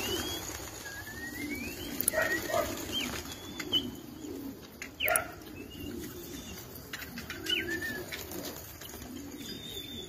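A flock of domestic pigeons in flight, with wings flapping and pigeons cooing, and several short rising whistles.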